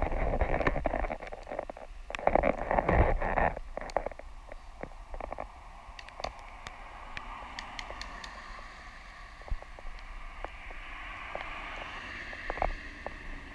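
Wind buffeting a handheld action camera's microphone, with low rumble and scattered clicks. The gusts are strongest at the start and again about two to three seconds in, then settle to a fainter steady hiss.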